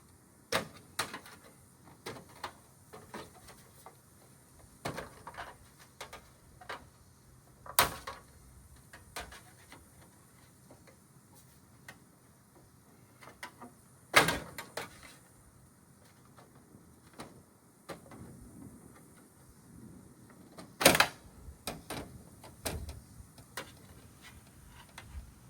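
Scattered metallic clicks and clanks of hand tools and sheet-metal parts being worked while a washer and dryer are taken apart for scrap, with three sharper, louder knocks spread through.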